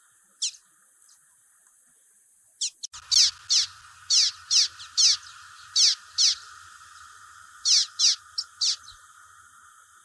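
Common waxbill (bico-de-lacre) calling: a single sharp note, then from about three seconds in a run of about a dozen high, downward-sweeping notes, roughly two a second, stopping shortly before the end. A steady hiss lies underneath.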